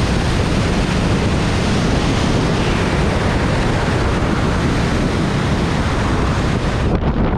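Loud, steady rush of wind over a helmet-mounted action camera's microphone during wingsuit flight. Near the end the high hiss cuts off suddenly as the jumper slows, the sign of the parachute being deployed.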